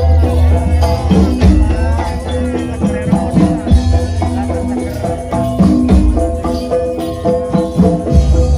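Live jaranan music from an East Javanese gamelan-style ensemble: loud, steady drum beats under repeated metallophone and gong notes.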